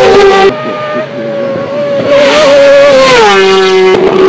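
Kawasaki ZX-6R supersport racing motorcycle's inline-four with an Akrapovič race exhaust, running flat out past on a road course with a high-pitched engine note. After a cut to another pass, the note falls sharply as the bike goes by, a little after three seconds in. Near the end a steady high note returns.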